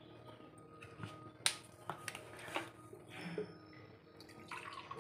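A few light clicks and taps, then liquid pouring from a plastic bottle into a glass tumbler begins near the end and grows louder.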